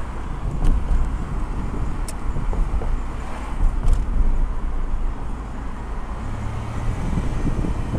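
A car driving along a street: a steady low rumble of engine and road noise, with a few faint ticks in the first four seconds.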